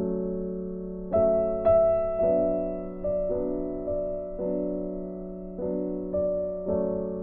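Background piano music: soft sustained chords, a new one struck about once a second.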